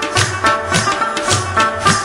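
Background music, a Pashto naghma, with a drum keeping a steady beat of about two strokes a second under a melody.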